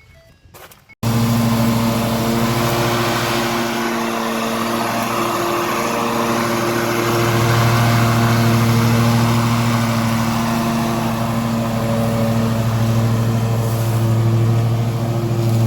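An engine running steadily after an abrupt start about a second in, its pitch rising and falling slightly.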